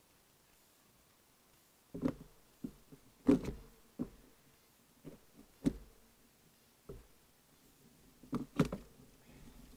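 Bicycle and its handlebar-mounted camera knocking and rattling as they jolt over a rough dirt track: about a dozen irregular knocks after a quiet first two seconds, the loudest about three seconds in and a double knock near the end.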